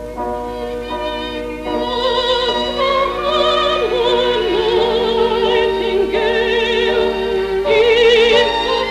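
A woman singing a song in a trained, operatic style with a wide vibrato, over instrumental accompaniment. The accompaniment is already playing, and the voice comes in about two seconds in.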